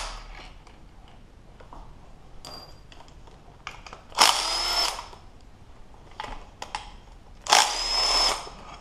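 Cordless electric impact running in two short bursts of under a second each, about four seconds and seven and a half seconds in, backing out the bolts of a power steering pump. A few light tool clicks come between the bursts.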